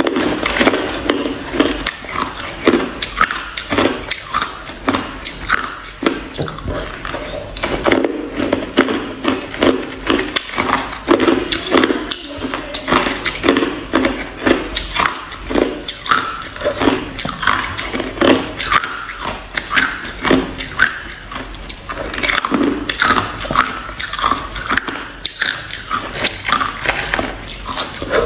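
Hard ice being bitten and chewed close to the microphone: a dense run of sharp crunches in quick succession, with no let-up.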